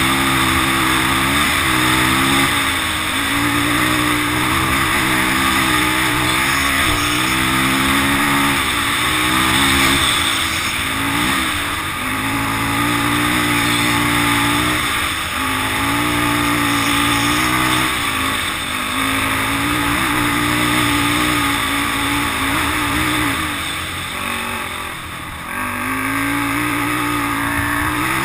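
Polaris Outlaw 500 quad's single-cylinder four-stroke engine under hard riding, its pitch climbing under throttle and dropping sharply every couple of seconds, with a short easing-off late on before it picks up again.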